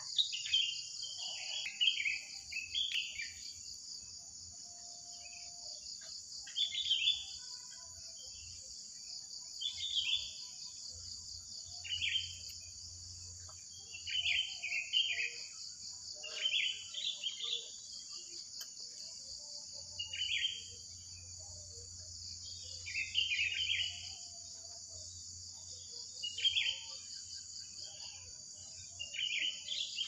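Wild songbirds singing: short, shrill chirping phrases repeated every two to three seconds, over a steady high-pitched insect drone.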